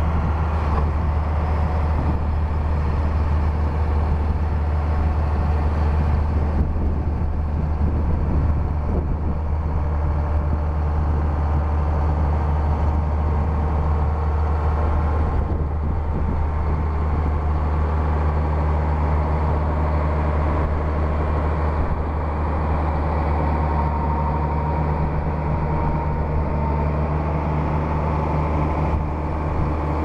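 A Case IH Magnum tractor's diesel engine runs steadily while driving a John Deere 7721 pull-type combine harvesting wheat, together with the combine's threshing machinery. The result is a steady, loud low drone.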